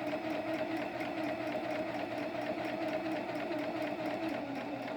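Kenmore electric sewing machine running steadily at speed: an even motor hum with fast, regular mechanism ticking. It is freshly cleaned and adjusted and runs smoothly. The sound fades as the machine stops at the end.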